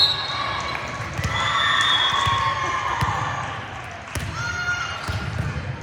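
Volleyball match in a gym: overlapping voices of players and spectators calling out and cheering, with sharp knocks of the ball being hit and bouncing on the court. A short high whistle sounds right at the start.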